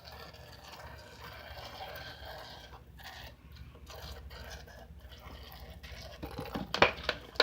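Homemade slime of body wash and salt being squished and worked by hand in a container, with a soft, irregular wet crackling; the slime has turned watery. A couple of sharper clatters come near the end.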